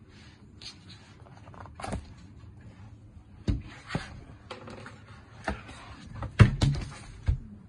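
Handling noise from a hardcover book with 3 mm cardboard covers: the covers and pages rustle and the boards knock against the table several times, the loudest knock about six and a half seconds in.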